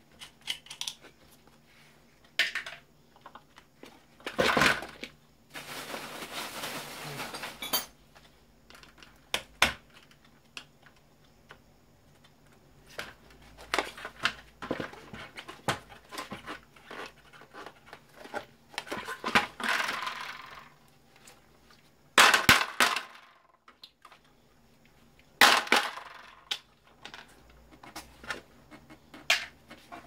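Electric fan being dismantled by hand: scattered clicks, knocks and clinks of fan parts and screws being handled. There is a steady noise lasting about two seconds, and several louder clusters of knocks.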